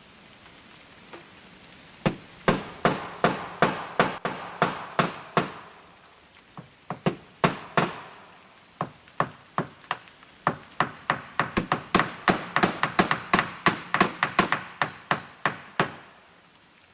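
Hammer blows nailing aluminum fascia trim: quick, sharp strikes at about three a second, in two runs with a short lull in the middle. The aluminum nails are soft and do not pierce the aluminum well, so a nail set is used to punch the holes first.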